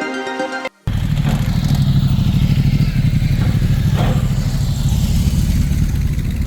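Plucked-string background music cuts off just under a second in. A vehicle engine then runs loud and close, with a deep pulsing rumble that holds steady.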